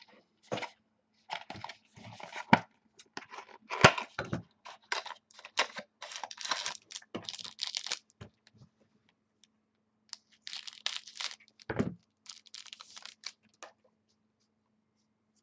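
Trading card pack wrapper being torn open and crinkled while the cards are handled, with a few sharp snaps and taps. The sound comes in two spells separated by a pause of about two seconds in the middle.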